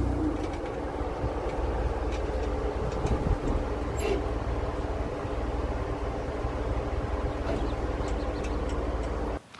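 Steady low vehicle rumble with light scattered rattles and clicks, cutting off suddenly near the end.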